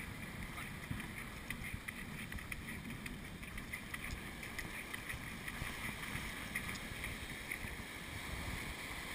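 Surf washing onto a sandy beach, with wind on the microphone.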